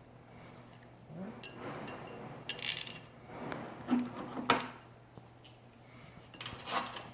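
Small metal hardware clinking and knocking as a VESA mounting plate, screws and washers are handled and fitted, with a few sharper knocks near the middle.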